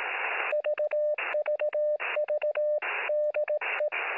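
Morse code (CW) heard through a radio receiver: static hiss for about half a second, then a single steady tone keyed in dots and dashes, with static filling each gap between characters.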